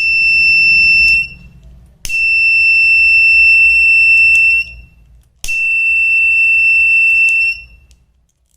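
A homemade fire alarm's 12 V mini buzzer sounding a loud, steady, high-pitched tone in three bursts of about one to two and a half seconds with short silent gaps, each burst ending with a slight upward chirp as it cuts off.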